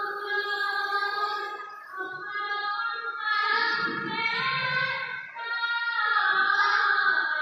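Women singing a dihanam, an Assamese devotional song, in long held, wavering notes. The singing dips briefly twice, about two and five seconds in.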